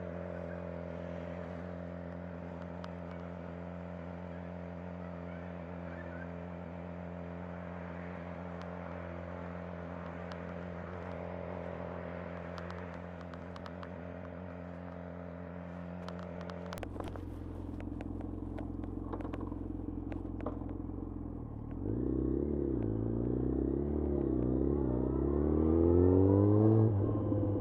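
2011 Yamaha FZ1's inline-four engine idling steadily, then a few sharp clicks about seventeen seconds in. From about twenty-two seconds the engine pulls away, revs wavering up and down, then climbing before easing off near the end.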